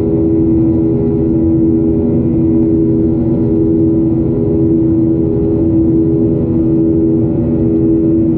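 A Boeing 737's CFM56 turbofan engine running steadily in flight, heard from inside the cabin: a constant drone with a steady hum at one pitch over the rush of air.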